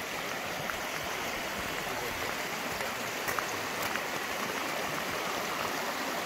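Steady rushing of a mountain stream, an even, unbroken wash of water noise with a few faint ticks over it.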